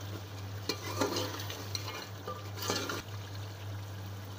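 A steel spoon stirring and scraping a thick masala with potato chunks frying in oil in a metal pot, with a few clinks of spoon on pot over a low steady hum. This is the bhuna stage, the ground onion-tomato masala being fried until cooked.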